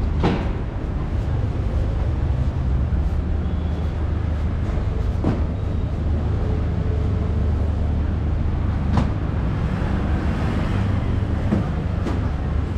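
City street ambience: a steady low traffic rumble, with a few short sharp knocks or clicks scattered through it.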